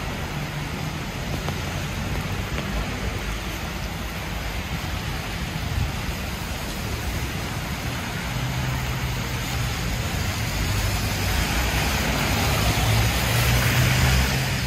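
Rain-soaked city street ambience: steady rain hiss with traffic. A motor vehicle's engine hum comes in about halfway through, and its wet-tyre hiss builds to the loudest point near the end as it passes close.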